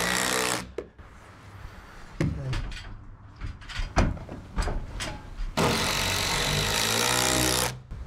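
Cordless impact driver driving 3-inch GRK structural screws through two plies of an LVL ridge beam. One run stops about half a second in, a few light knocks follow, and a second run of about two seconds comes near the end.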